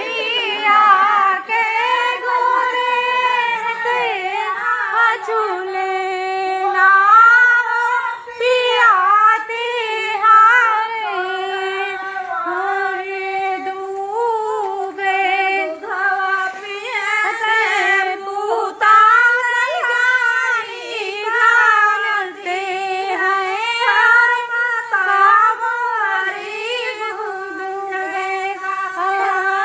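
Women singing a folk song together in one unison melody, without instruments.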